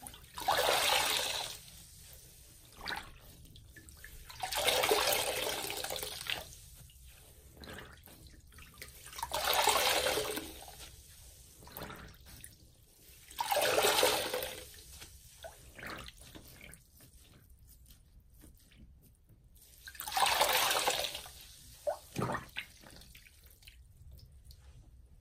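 A soaked sponge squeezed by hand in a sink of soapy water. Water gushes out of it five times, a few seconds apart, with quiet dripping and trickling in between.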